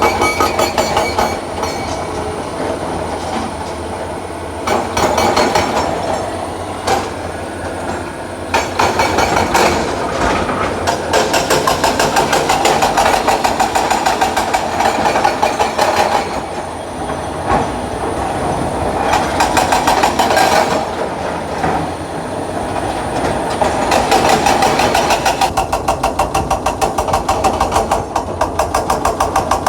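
Excavator's diesel engine running with a fast, even pulsing beat, with sharp metallic knocks now and then.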